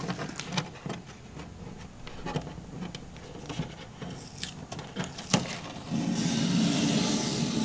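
Faint scratching and rubbing as a fingernail lifts the edge of masking tape on chrome window trim. About six seconds in, a steady, louder rasp as a long strip of masking tape is peeled off the trim.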